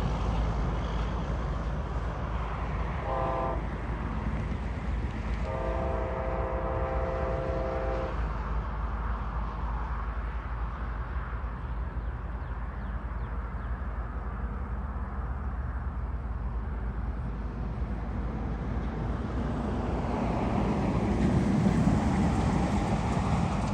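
Distant Amtrak locomotive horn sounding a multi-note chord, a short blast followed a couple of seconds later by a long one, the closing notes of a grade-crossing signal. A steady low rumble runs underneath and swells near the end as the train draws closer.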